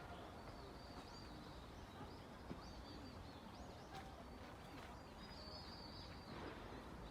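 Small birds chirping faintly: many short, high chirps scattered throughout, over a quiet steady background hiss.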